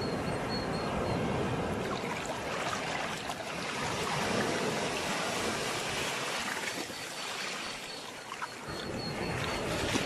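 Sea waves washing onto a shore, a continuous rush of surf that swells and ebbs, building about four seconds in and easing a little near eight seconds.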